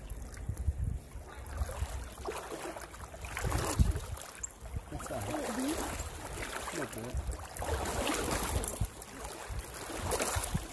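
Wind rumbling on the microphone over the rush of a trout stream, with faint voices in the second half.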